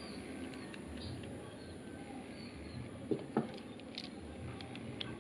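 Light clicks and taps from a small spinning reel's body being handled as its side cover is worked loose, with two sharper clicks about three seconds in.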